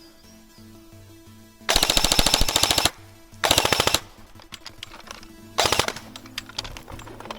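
Airsoft guns firing rapid full-auto bursts: a long burst about two seconds in, a shorter one shortly after, and a brief one past the middle, followed by a few scattered single shots. Background music with steady low tones runs underneath.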